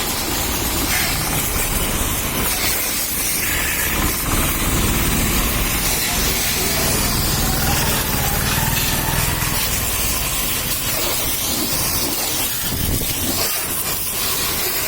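A high-pressure jet spraying with a steady hiss over a low rumble.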